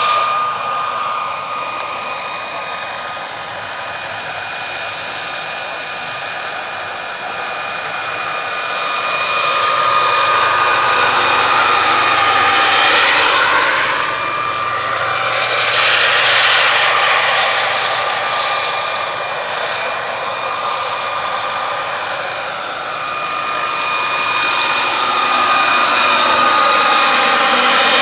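Turbine-powered RC scale EC135 model helicopter in flight: a steady high turbine whine under the rush of its rotors. It swells louder twice as the model flies close by, about halfway through and again near the end.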